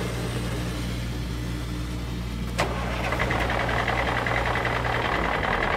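Engine idling: a steady low hum. About two and a half seconds in there is a click, then a hissier engine sound with a steady high note carries on, and the low hum fades out just past five seconds.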